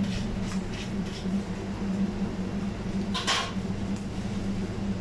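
Steady low hum of a kitchen exhaust fan running over a charcoal kebab grill, with one short hiss about three seconds in.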